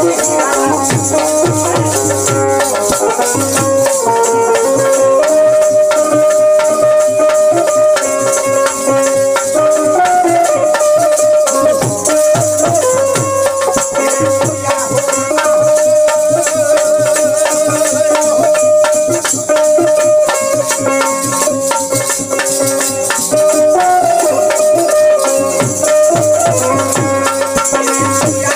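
Folk ensemble music: a harmonium holding a steady melody over a dholak beat, with the continuous shaking jingle of hand-held wooden clappers.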